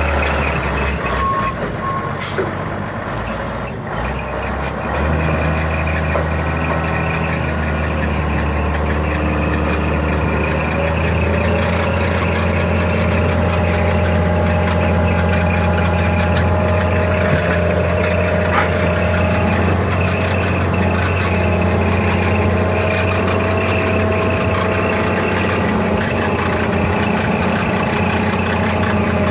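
Ford 7.8L inline-six diesel engine of a 1991 Ford L8000 dump truck running steadily, a little louder from about five seconds in, with a brief hiss about two seconds in.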